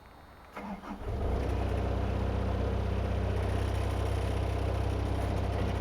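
Excavator diesel engine being started: a brief crank about half a second in, the engine catches about a second in and settles into a steady idle.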